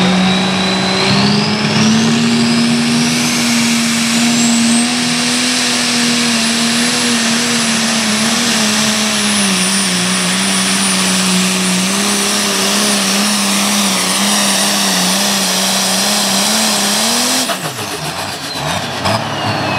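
Pulling tractor's engine at full throttle, dragging a weight-transfer sled down the track. A high whine climbs over the first few seconds and the engine note wavers as it pulls. About two seconds before the end the engine note falls away suddenly.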